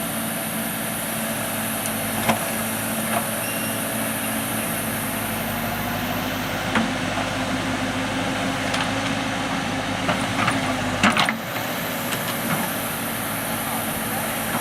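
Diesel engine of a heavy earthmoving machine running steadily, with scattered knocks and a cluster of louder clanks about eleven seconds in.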